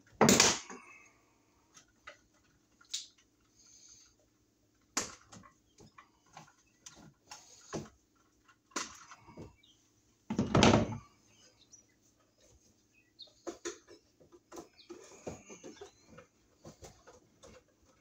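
Small hammer knocking cable staples over electrical cable into wooden studs: a loud cluster of knocks near the start and another about halfway through, with lighter taps, clicks and cable rustling in between.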